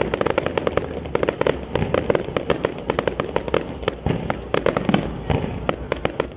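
Fireworks display: a rapid, unbroken run of bangs and crackling pops from many shells bursting at once, over a steady low rumble.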